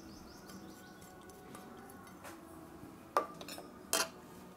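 Two metallic clinks of stainless steel bowls, a little under a second apart near the end; the first rings briefly. The small steel bowl is knocked against the steel mixing bowl and set down on the table.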